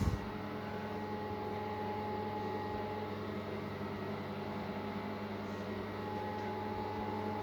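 Steady mechanical hum with several fixed tones, like a running motor or fan, with a short knock at the very start.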